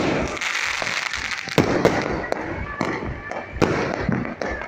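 Firecrackers and fireworks going off: an irregular series of sharp bangs over a crackling hiss, densest in the first second and a half.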